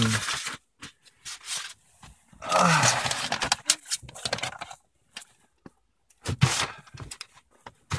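Intermittent rustling and scraping handling noise, loudest in a burst about two and a half seconds in and again near the end, with a brief voice sound in the first burst.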